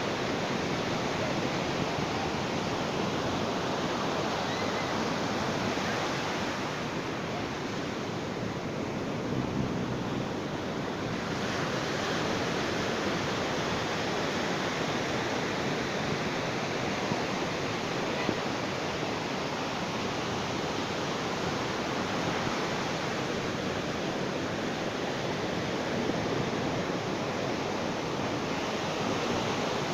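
Sea waves washing on a beach in a continuous surf, easing slightly for a few seconds about a quarter of the way through before building again.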